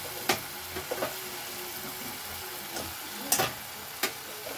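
Masala paste sizzling in an aluminium kadai as raw potato pieces are added, with four sharp knocks against the pan, the loudest about three seconds in.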